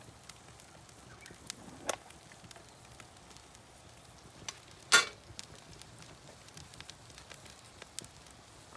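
Wood fire crackling with scattered sharp pops; the loudest pop comes about five seconds in.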